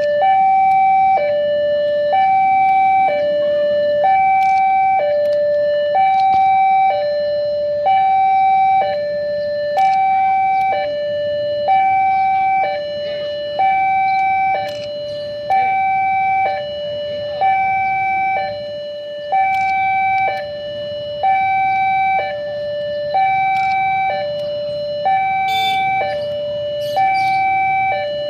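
Railway level-crossing warning alarm sounding a steady two-tone hi-lo signal, switching between a higher and a lower tone about every second, the warning that a train is approaching. A low rumble of traffic or wind noise runs beneath it.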